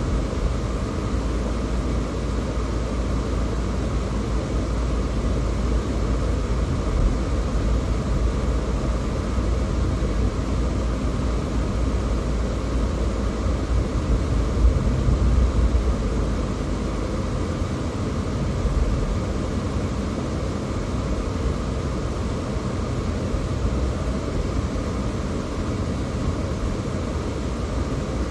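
Steady road and engine noise of a moving car, mostly a low rumble, briefly louder about halfway through.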